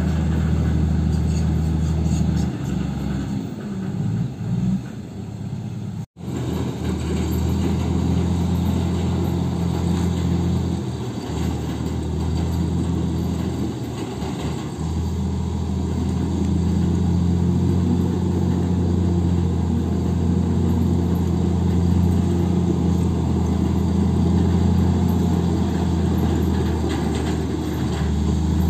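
Heavy diesel engines of Komatsu crawler bulldozers running with a steady low drone. The sound cuts out for an instant about six seconds in.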